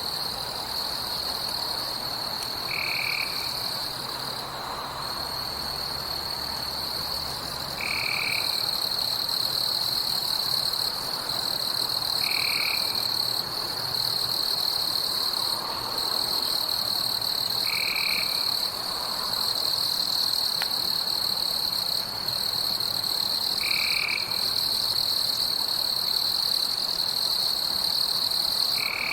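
Night forest ambience: a steady high-pitched insect trill throughout, with a short call repeating about every five seconds.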